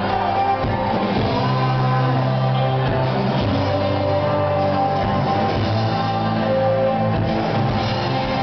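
Live rock band playing: electric guitar, bass and drums, with steady loud sound, heard from within the audience in a club hall.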